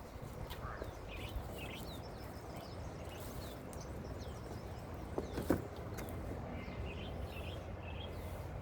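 Small birds chirping repeatedly over a steady low background hum, with a single sharp knock about five and a half seconds in.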